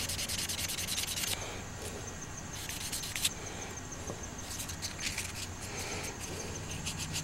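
Fine sandpaper rubbed in quick back-and-forth strokes over the knife's scrimshaw handle scale, polishing off excess marker ink from the engraved lines. The strokes come in several short spells with pauses between.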